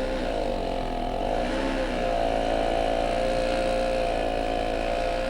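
Small gas snowblower engine running hard while throwing snow. Its note dips twice in the first couple of seconds, then holds steady. The machine is small for this depth of snow and near the limit of what it can blow up over the high banks.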